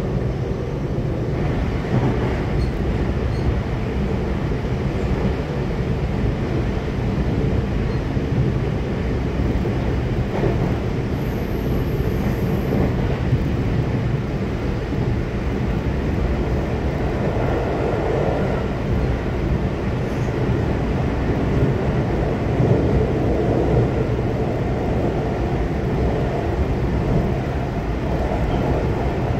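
Train running at speed through a tunnel, heard from inside the passenger carriage: a steady, unbroken noise of wheels on rail and air, strongest in the low range.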